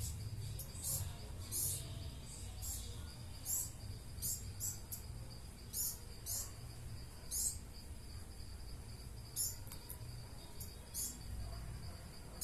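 Small backyard birds chirping: short, sharp, high-pitched chirps at irregular intervals, over a faint steady high whine.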